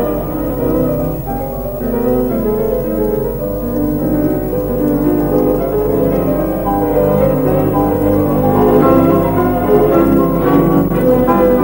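Background music led by piano, in a classical style, a steady run of notes without a break.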